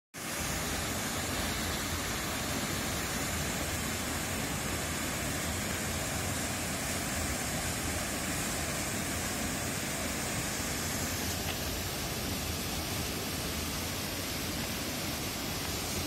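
Small river waterfall pouring over rock ledges into a pool: a steady rush of falling, splashing water.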